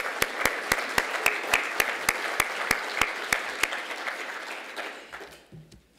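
Audience applauding, with one person's claps sharp and close to the microphone at about four a second until nearly four seconds in; the applause then dies away.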